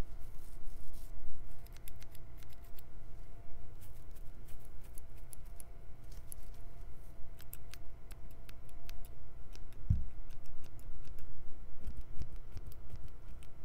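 Scissors snipping in a quick, irregular run of sharp snips, with one low thump about ten seconds in.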